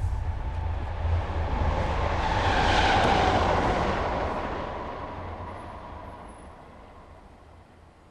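A vehicle passing in the street: a rumble that builds to a peak about three seconds in, dropping slightly in pitch as it goes by, then fades away, over a steady low hum.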